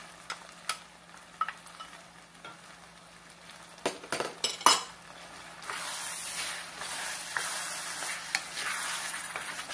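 Tomato sauce and ground pork sizzling quietly in a stainless steel skillet. About four seconds in, a wooden spoon knocks against the pan a few times. Then stirring the sauce into the meat brings a louder, steady sizzle with the spoon scraping the pan.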